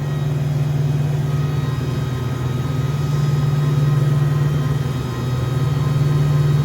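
Rogers 10 hp air-cooled rotary screw air compressor running inside its full sound enclosure: a steady low hum with a few fainter steady tones above it.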